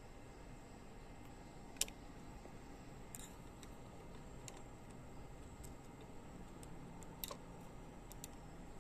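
A few scattered light clicks and taps of parts being handled, over a faint steady hum, as the embroidery hoop on a computerized embroidery machine is adjusted; the sharpest click comes about two seconds in.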